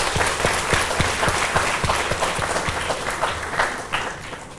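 Audience applauding, starting to die down near the end.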